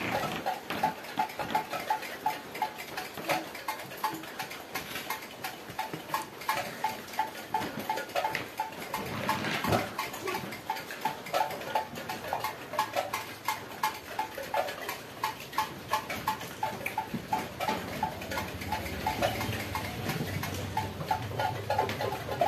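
Pencil scratching on paper in quick, repeated strokes. Under it runs an unbroken series of short, pitched animal calls, several a second.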